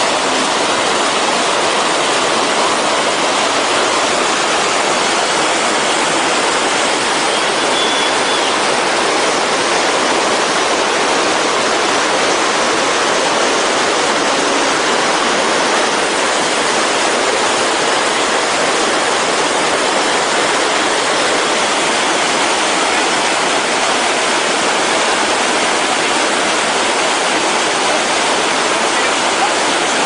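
Whitewater of a mountain stream pouring over boulders in a small waterfall: a loud, steady rush of water that does not change.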